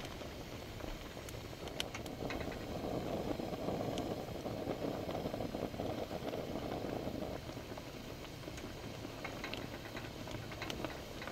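Shabu-shabu broth bubbling in a stainless steel pot over a portable gas stove's burner: a steady bubbling hiss that swells for a few seconds and then eases, with a few faint ticks.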